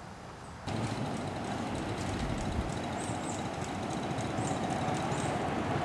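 1-inch-scale live steam train running along its track with a full load of riders: a steady, dense rushing noise of the locomotive and rolling cars that starts abruptly about a second in and grows slowly louder.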